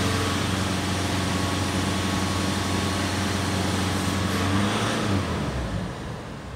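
Nissan Pathfinder's 2.5-litre four-cylinder turbo-diesel engine held steady at about 3,000 rpm, heard from inside the cabin. About five seconds in, the throttle is released and the revs fall back toward idle.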